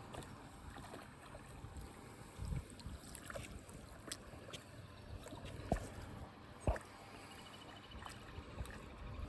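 River water running steadily, with a couple of sharp knocks a little past the middle.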